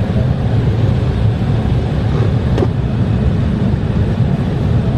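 Steady low rumble of an airliner cabin, with a single brief click about halfway through.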